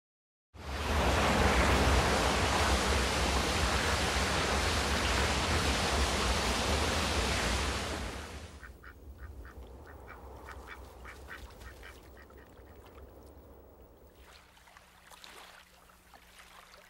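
A loud steady rushing noise for the first eight seconds or so, then, much quieter, a quick run of repeated honks from Canada geese.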